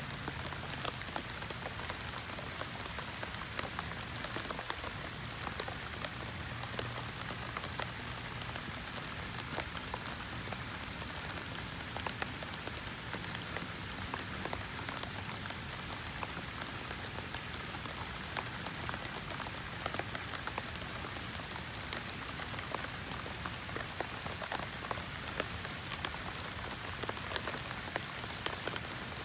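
Steady rain falling on a surface, with many close individual drops ticking sharply through an even hiss.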